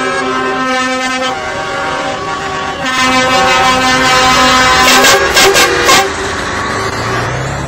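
Lorry air horns sounding in held notes, with several loud crackles about five to six seconds in, then the steady rumble of a lorry engine going past.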